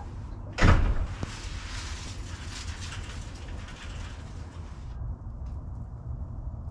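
Wheat grain poured from a plastic bucket onto the ground: a thump as the grain starts to fall, then a steady hiss of pouring grain for about four seconds that cuts off suddenly.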